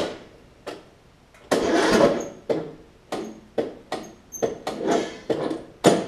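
Starter cranking the Craftsman LT1000 riding mower's engine over slowly, in uneven strokes about three a second, without it catching. The cranking is super weak, which the owner puts down to the valves, a worn camshaft or the compression release.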